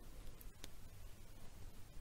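Quiet room tone: faint hiss and a low hum, with a faint click under a second in.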